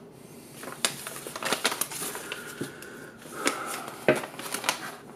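Handling noise: a run of crinkling and light sharp clicks, the sharpest about four seconds in.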